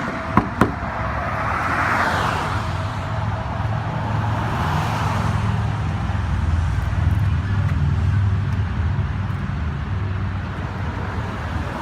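Road traffic noise: a steady low rumble of motor vehicles, with cars passing by about two and five seconds in. Two sharp clicks come about half a second in.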